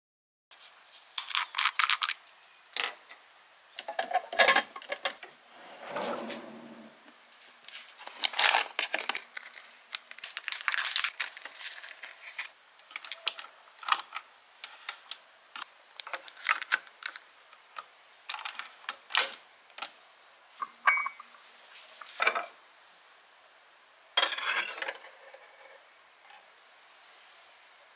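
A capsule coffee machine and a china cup and saucer being handled, with irregular clicks, taps and clinks of plastic and porcelain.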